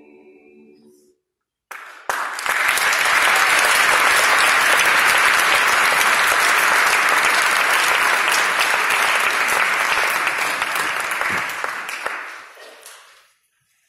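A treble choir's last held chord ending, then audience applause that breaks out about two seconds in, stays steady for about ten seconds and fades away near the end.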